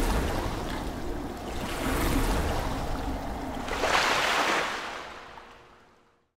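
Splashing, rushing water sound effects that swell about every two seconds, the loudest swell about four seconds in, then fade away to silence just before the end.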